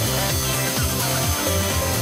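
Electronic background music with a steady beat and held bass notes.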